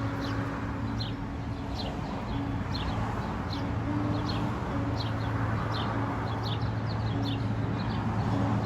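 Sparrows chirping: short, high, falling notes, about one or two a second at irregular intervals, over a steady low hum and rushing background noise.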